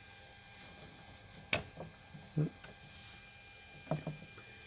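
RepRap 3D printer's print head and deck being moved by hand with the stepper motors switched off: a faint steady hum, with one sharp click about a second and a half in.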